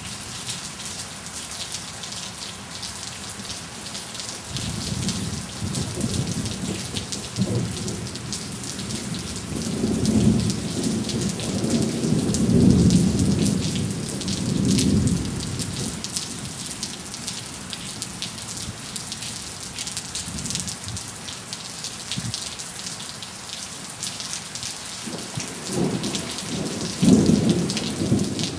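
Heavy, steady rain with rolling thunder: a rumble about five seconds in, a longer and louder one peaking around the middle, and another near the end.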